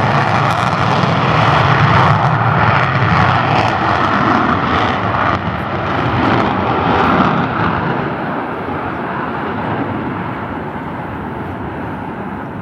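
Jet engine roar of F-16 Fighting Falcons on their takeoff run. The roar fades and loses its treble over the last few seconds as the jets pull away into the distance.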